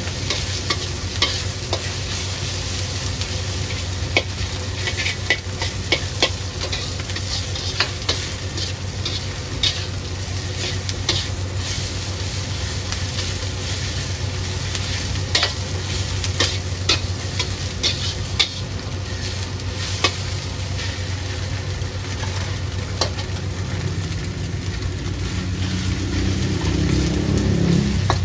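Metal spatula scraping and clacking against a steel wok as egg and greens are stir-fried, over a steady low hum. Near the end the frying grows louder as wide rice noodles go into the wok.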